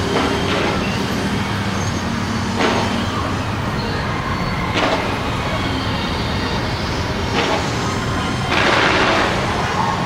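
Fireworks display: single aerial shells bursting with sharp bangs every couple of seconds, and a longer, denser burst near the end, over a steady background din.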